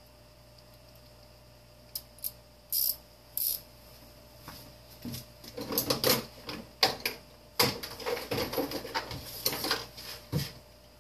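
Irregular clicks and clatter of hard plastic parts and tools being handled while a space heater is taken apart: a few sharp clicks and two short scrapes, then a busier run of clattering about halfway through.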